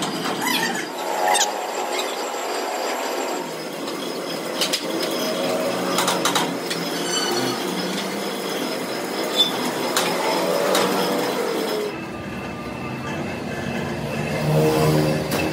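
Metalworking shop noise: metal clanking and scraping, with sharp knocks and squealing tones, changing abruptly about twelve seconds in.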